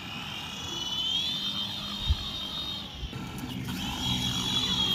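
Velocity mini infrared-controlled toy helicopter's small electric motor and rotor blades whining as it spins up and lifts off. The high whine rises in pitch about a second in and again a little past halfway, with two short low thumps in between.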